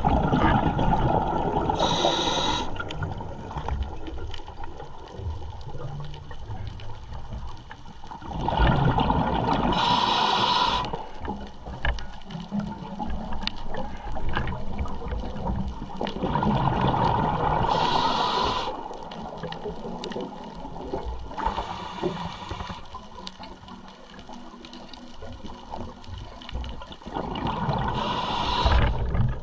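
Underwater sound of a diver breathing on a scuba regulator: a gurgling rush of exhaled bubbles alternating with a hissing inhale, in a cycle about every eight seconds.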